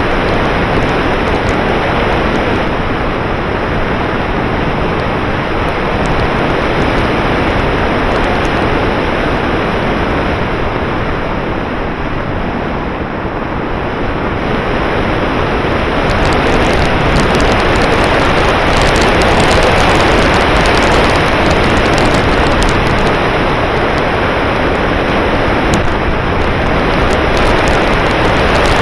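Steady rush of wind over the onboard camera's microphone as the model glider flies, a little louder about halfway through.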